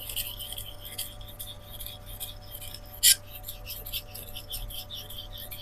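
Victorinox butcher knife being sharpened on a Shapton Rockstar 4000-grit whetstone, working up a burr. Quick back-and-forth strokes of steel rasping on the stone, about three a second, with one sharp click about three seconds in.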